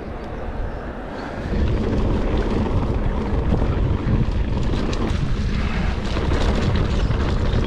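Mountain bike ride over a rough, stony track: wind buffeting the microphone with a low rumble, and many rattling clicks from the bike jolting over stones. It gets louder about a second and a half in.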